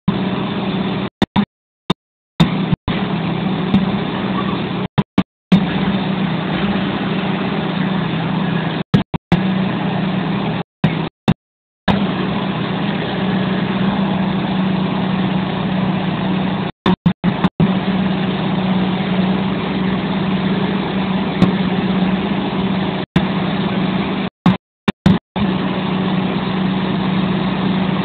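Huddig 1260 backhoe loader's diesel engine running at a steady speed with a low hum. The sound cuts out abruptly to silence many times for a split second.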